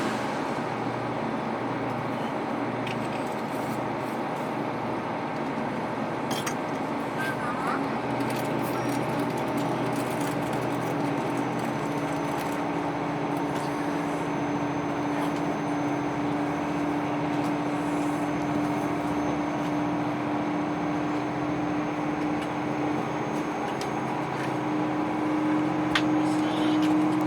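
KiHa 261 series diesel express railcar running and climbing a grade, its engines working hard under load with a steady drone. A clear humming tone comes in partway through and rises slightly in pitch near the end.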